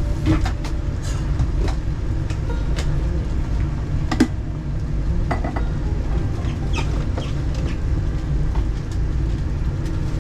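A steady low rumble with scattered clinks, taps and a few short squeaks of cooking utensils and dishes being handled.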